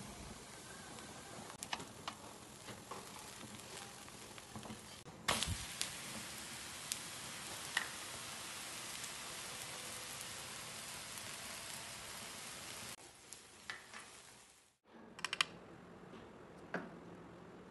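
Dosa batter sizzling on a hot iron tawa, a steady hiss with scattered small clicks, growing louder about five seconds in. Near the end the sizzle drops away, leaving a few faint clicks.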